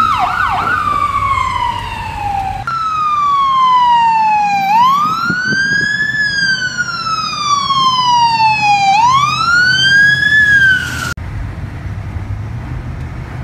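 Emergency siren in wail mode: a loud tone sliding down and swooping back up about every four seconds. It cuts off abruptly about eleven seconds in, leaving steady vehicle road noise.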